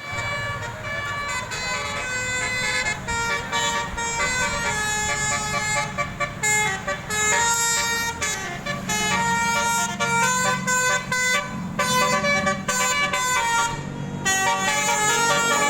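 Bus 'telolet' musical air horn playing a melody, several horn tones sounding together and stepping from note to note, over a low rumble.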